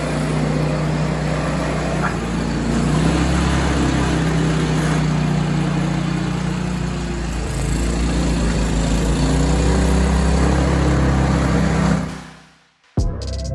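MTD Yard Machines 30-inch snowblower's Briggs & Stratton 1350 Snow Series engine running steadily at speed while the machine clears snow. Its governor has just been adjusted so the engine ramps up to full speed. The engine sound fades out about twelve seconds in, and music starts just before the end.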